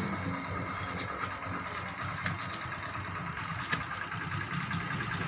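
A motor vehicle engine idling steadily, a low rumble with a few light clicks over it.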